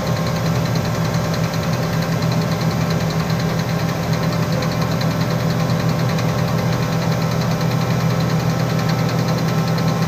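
Engine of a Manitex 50128 boom truck running steadily, heard from inside the crane cab. It is driving the hydraulics while the hook is hoisted up.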